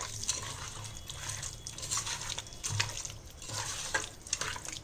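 Chicken in a thick yogurt-and-spice marinade being mixed in a bowl: wet, sloppy stirring sounds with irregular small clicks.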